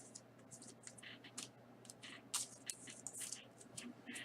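Faint, scratchy rustling and sliding of trading cards being handled and shuffled from one card to the next, in many short irregular scrapes.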